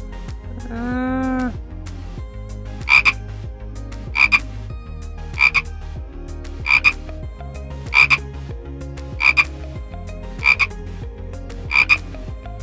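An animal calling in short double notes, eight times at about one pair every 1.2 seconds. Before them, a longer pitched call ends about a second and a half in.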